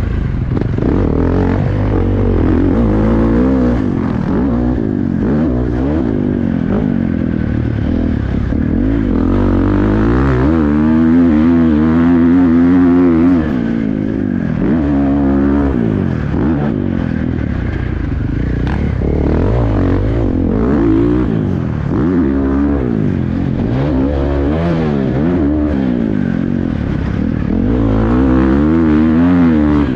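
Husqvarna FC450 four-stroke single-cylinder motocross engine revving up and falling back again and again as the rider opens and closes the throttle around a dirt track. It is heard from a helmet-mounted camera, under a steady low rumble.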